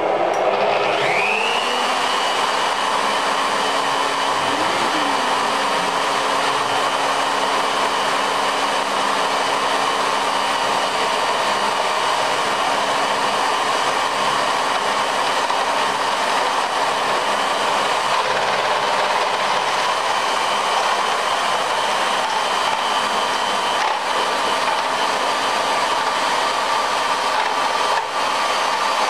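A plunge router running with a dust-extractor hose attached. Its high motor whine rises as it spins up about a second in, then holds steady as an even, loud machine noise.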